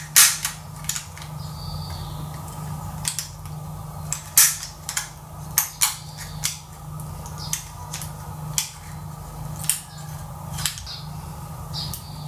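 Irregular sharp metallic clicks and taps as a stack of ring magnets on a threaded steel stud is handled and a steel utility-knife blade is brought against the magnets and pulled away. A steady low hum runs underneath.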